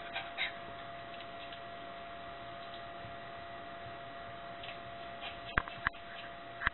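A small dog's anxious panting trails off in the first moment. After that a steady electrical hum holds. Two sharp clicks come close together near the end.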